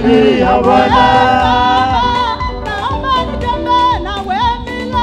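Church praise team singing a lively gospel worship song together into microphones, loudly amplified with instrumental backing.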